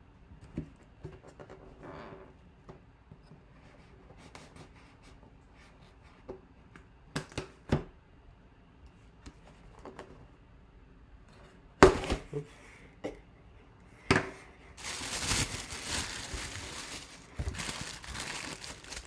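Cardboard jersey box being handled and opened, with scattered taps and knocks and one sharp knock about twelve seconds in. Over the last few seconds comes a long rustling and crinkling as the tissue paper wrapping the jersey is pulled back.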